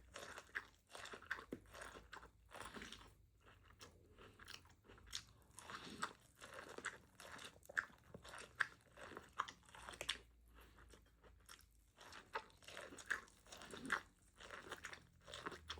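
A person biting and chewing elote, corn on the cob coated in mayo: irregular crunches and mouth clicks, several a second.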